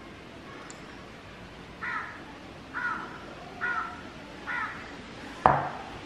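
A crow cawing four times, about one caw a second, followed by a single sharp knock.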